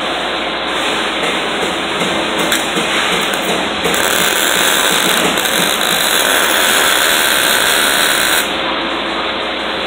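Welding arc struck about four seconds in, running steadily for about four and a half seconds and then cutting off suddenly, over steady workshop noise.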